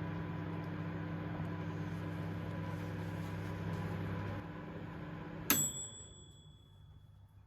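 Microwave oven running with a steady hum that eases a little over four seconds in, then a single bright ding that rings out and fades: the end-of-cycle signal that the heating is done.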